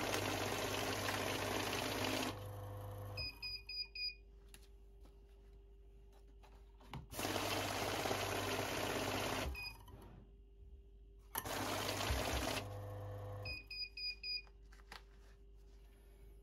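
Electronic banknote counting machine running stacks of $100 bills through its rollers in three counting runs, each a rapid fluttering whir of notes being fed and stacked. After the first and last runs the motor winds down and the machine gives four quick beeps.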